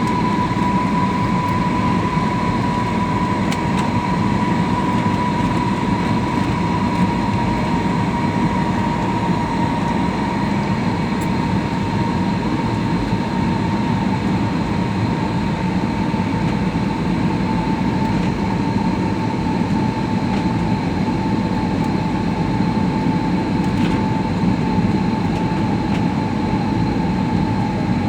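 Passenger airliner cabin noise: a steady rumble of engine and airflow, with an engine whine that slowly drops in pitch.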